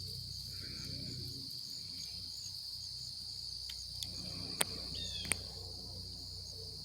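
Steady outdoor insect chorus, a continuous high trill of crickets, with a short falling bird call about five seconds in and two sharp clicks just before and after it.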